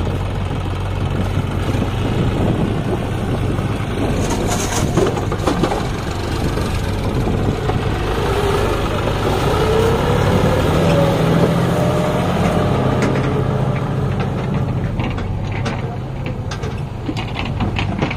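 John Deere 5050 D tractor's three-cylinder diesel engine running under load as it pulls a trolley heaped with earth. Its note rises for a few seconds about halfway through, with scattered sharp clicks over the steady running.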